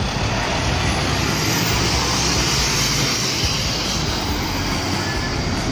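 Scania garbage truck's diesel engine running steadily as it drives along a street, with tyre and traffic noise.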